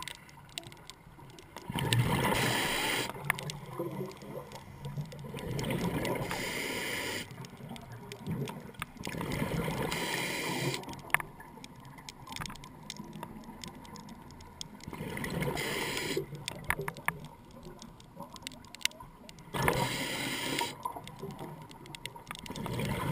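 Scuba regulator exhalations underwater: bursts of bubbles about every four seconds, each lasting a second or two and heard muffled through the camera housing. Faint scattered clicks fall in the gaps between breaths.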